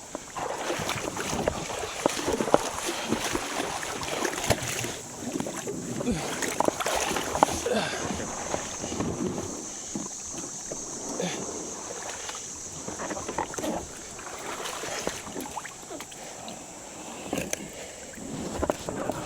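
Water sloshing and splashing around a kayak in a shallow river, with scattered knocks and a steady high hiss throughout.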